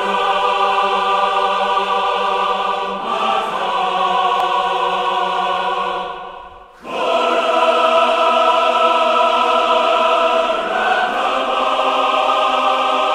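A choir singing long held chords as soundtrack music. It fades away shortly before seven seconds in, then comes straight back in full.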